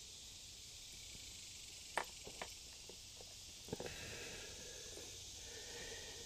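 Small metal clicks and taps as a golf cart carburetor and its linkage and clip are handled: one sharp click about two seconds in, a few lighter ticks after it, and a short cluster of clicks a little later, over a steady faint hiss.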